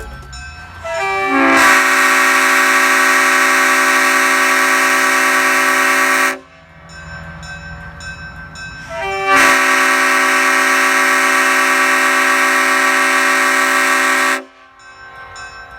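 Leslie RS5T five-chime train horn with RS power chambers, blown in two long blasts of about five seconds each. Its bells catch one after another at the start of each blast, then hold a steady chord, and each blast cuts off sharply.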